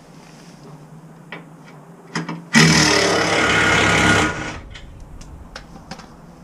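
A small electric power tool's motor running in one burst of just under two seconds, starting abruptly about two and a half seconds in, with a few light clicks just before it: typical of driving out underbody panel fasteners.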